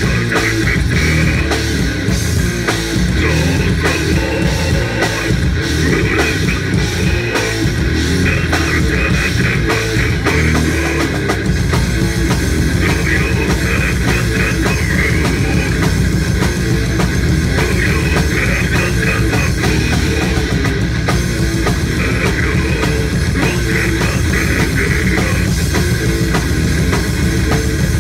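Live heavy rock band playing loud, recorded on a phone: pounding drum kit, electric bass and guitar, with the vocalist singing into the microphone.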